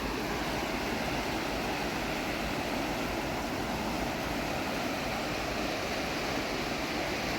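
Steady rushing of a flooded, overflowing river's fast current.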